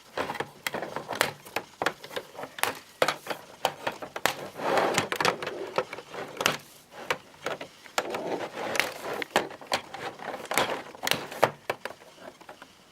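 A Transformers action figure being cut out of its cardboard and plastic packaging: a long run of irregular snips, clicks and snaps, with stretches of rustling plastic and cardboard.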